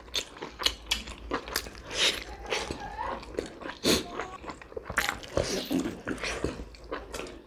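Mouth sounds of eating large steamed pork momos: bites into the soft dumplings and wet chewing, an irregular run of small sharp smacks and clicks, several a second.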